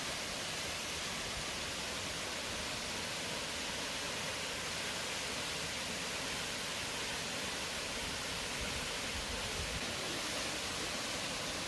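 A tall two-stream waterfall plunging into a pool, heard as a steady, even rushing hiss.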